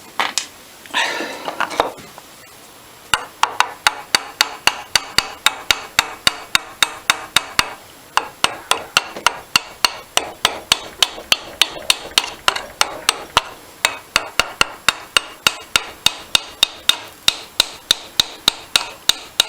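Rapid, steady light hammer taps, about three a second, on the metal body of an old seized carburettor being worked apart on a bench. They begin a few seconds in after a short handling rustle.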